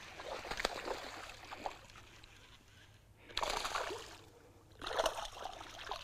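Water splashing as a hooked bass fights at the surface, in two louder bursts about three and a half and five seconds in, with lighter splashing between.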